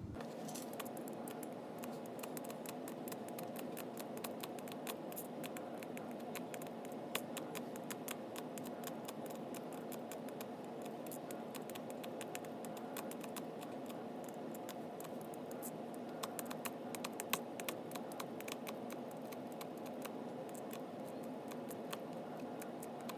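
Primer pickup tube pressed down over small pistol primers one after another in a plastic flip tray: a steady run of small sharp clicks and scratches as the primers snap into the tube, over a faint steady hum.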